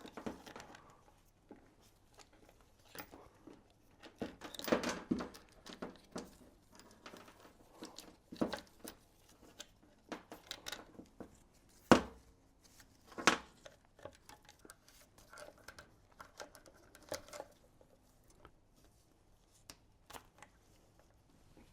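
Timing chain and the guide-and-tensioner assembly being worked into place by hand on an Audi 4.2 FSI V8. Intermittent clinks, rattles and light knocks, with two sharper knocks about halfway through.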